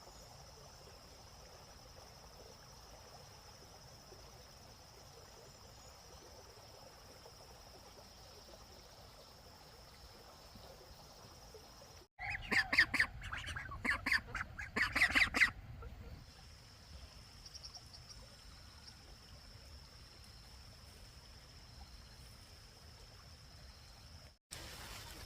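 A steady, faint, high-pitched insect drone, broken about halfway through by three seconds of loud, rapid bird calls in quick repeated bursts, like a duck quacking. After that the drone comes back.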